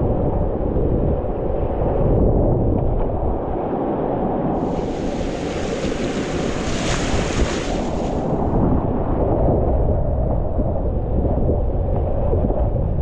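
Whitewater rushing and splashing around a kayak running a rapid, with wind buffeting the microphone. About four and a half seconds in, the splashing turns brighter and hissier for about four seconds, then settles back.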